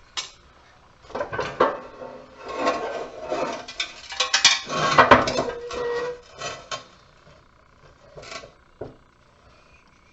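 Light-fixture parts clinking and clattering as they are handled and set down: a run of irregular knocks and clinks, with a short ringing note about five seconds in, thinning to a few separate knocks near the end.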